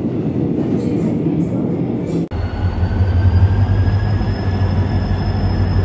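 A train passing close by, a dense rumble of wheels on rails. About two seconds in, the sound cuts abruptly to a locomotive-hauled train approaching a platform: a strong, steady low engine drone with a faint high whine that rises slightly.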